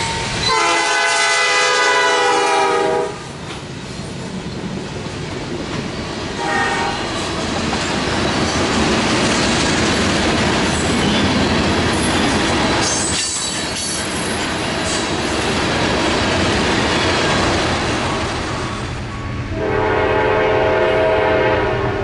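Diesel freight locomotive's air horn sounds one long blast and, a few seconds later, a short one, then a long train of tank cars rolls past with steady wheel rumble and clickety-clack. Near the end a second train's horn sounds, lower in pitch.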